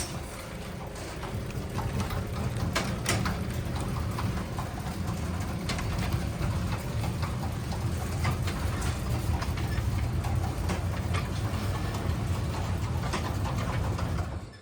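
Craftsman 3/4 horsepower garage door opener running under load as it drives a 16×10 Wayne Dalton sectional door along its track: a steady low motor drone with light rattling clicks, stopping near the end as it reaches its limit.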